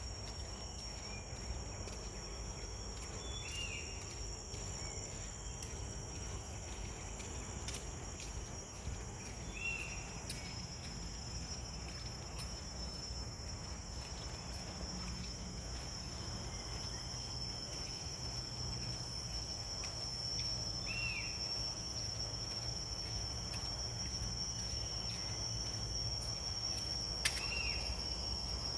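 Insects calling in a steady, high-pitched chorus over a low background rumble, with four short chirps scattered through.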